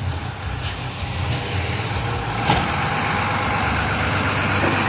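Putri Luragung intercity bus's diesel engine running through its modified exhaust with a snoring, tinny note, getting steadily louder as the bus speeds off. Two short sharp clicks come about half a second and two and a half seconds in.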